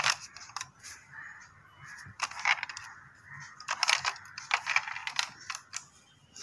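Toy model cars clicking and clattering as one is picked up, handled and set down among others, in a few short bursts of clicks.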